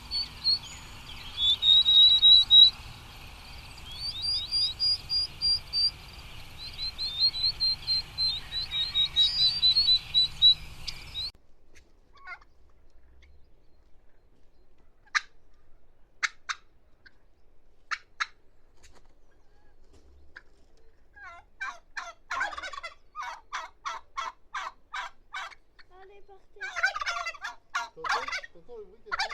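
A small songbird's high chirping song over a steady low background rumble. It cuts off suddenly about eleven seconds in, to a turkey's calls: a few single sharp notes, then a fast, even run of calls at about three a second, and a louder rattling call near the end.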